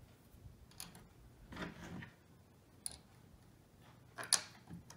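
Small stainless steel screws clicking against metal angle brackets as they are set into the holes by hand: a few light, separate clicks with a soft rustle of handling between them.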